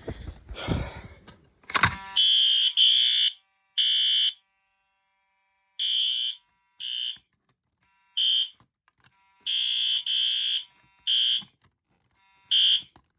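A click about two seconds in, then fire alarm horns sounding in uneven pulses of a high tone with silent gaps between them: a fire alarm system set off from a pull station under test.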